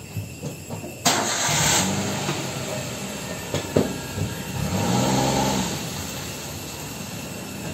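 An engine running, with noise that starts suddenly about a second in and a low pitched hum through the middle.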